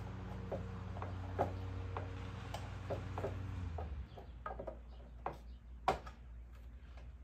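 Scattered light clicks and knocks as an outlet strip's plug and cord are handled and fitted into a cut-out slot in a wooden board, over a low steady hum that stops about four seconds in.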